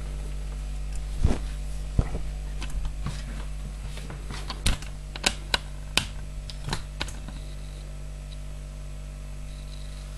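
Scattered light clicks and taps, about a dozen, bunched mostly between one and seven seconds in, over a steady low hum.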